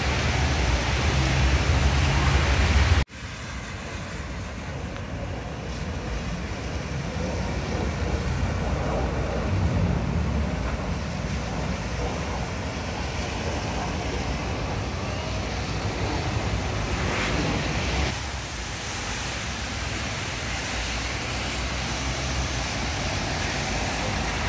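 Road traffic on a rain-wet road: buses and cars passing with tyre hiss and engine rumble. The sound is louder for the first three seconds, then drops suddenly and goes on steadily, swelling gently as vehicles pass.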